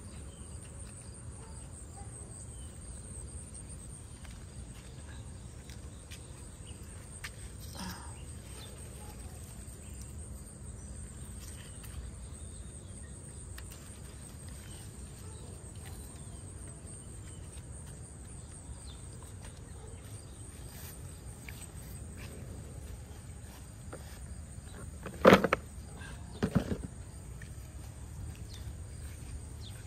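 Outdoor garden ambience: insects droning steadily at a high pitch over a low rumble. Near the end come two sharp knocks about a second apart, the loudest sounds.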